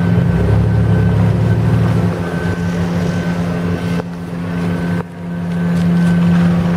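Construction machinery engines running steadily at a constant pitch, a low drone that dips in level about two seconds in and drops sharply around five seconds before building back up.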